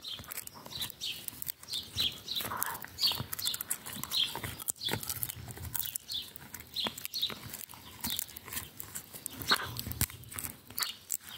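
Golden retriever chewing on a wooden stick: irregular crunches, cracks and clicks of the wood between its teeth.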